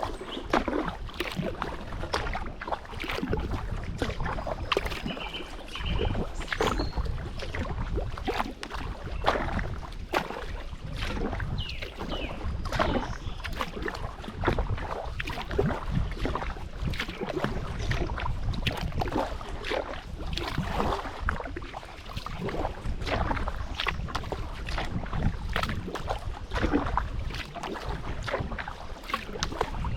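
Kayak paddling: the paddle blades dipping and splashing in the water stroke after stroke, with wind rumbling on the microphone.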